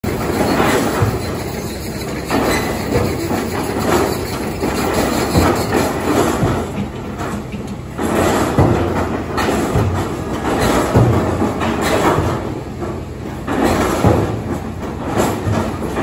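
Rotary bored-piling rig at work: its diesel engine running with repeated metal clanks and rattles from the drilling gear.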